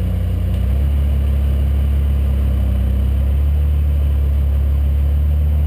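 An ATV engine idling steadily close by. Under a second in, its note steps up slightly and gets a little louder.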